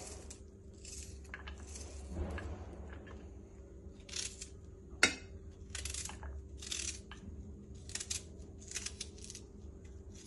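A knife slicing through an onion held in the hand. A crisp cut comes every second or so, at an uneven pace. About halfway through there is one sharp click.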